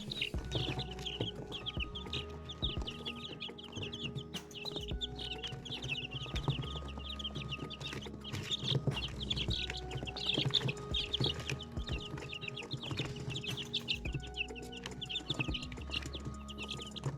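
A brood of young chicks peeping continuously, a dense stream of short, high cheeps overlapping one another.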